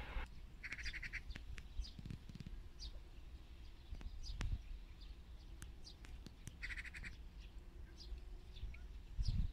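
Birds calling, mostly short chirps, with a quick twittering phrase about a second in and again near the end. A low rumble runs underneath and grows louder in short bursts near the end.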